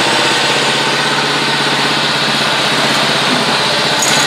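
John Deere JX75 walk-behind mower's Kawasaki FC150V single-cylinder engine running steadily, just after being restarted.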